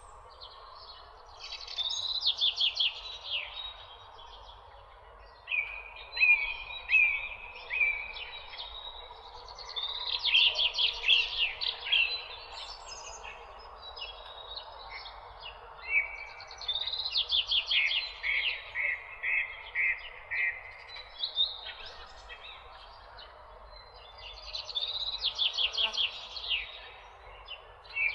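Songbirds singing in a morning countryside soundscape: bursts of quick falling notes and trills every few seconds, with quieter chirps between, over a steady background hiss.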